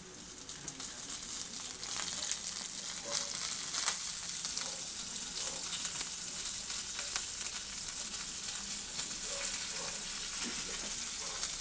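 Soy-marinated pork pieces sizzling as they go into a hot frying pan of sautéed garlic and onions. The sizzle grows louder over the first two seconds, then holds steady with scattered crackles and pops.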